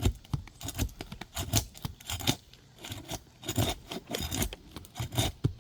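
Irregular gritty scrapes and clicks of asphalt architectural roof shingles (Elk Prestique) being handled and rubbed against each other.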